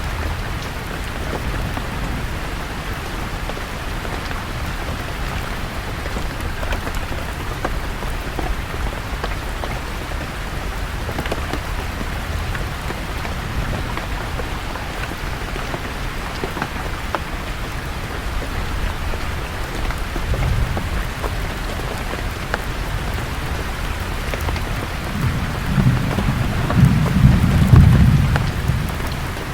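Steady rain falling on forest leaves, with scattered drips. A low roll of thunder swells near the end and is the loudest part.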